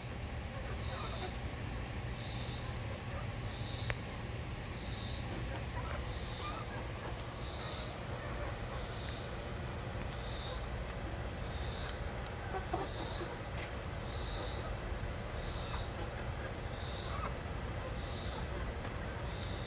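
Hens clucking softly as they peck at a feeder. Behind them runs a steady high-pitched chorus of insects that pulses in a regular rhythm, about three pulses every four seconds.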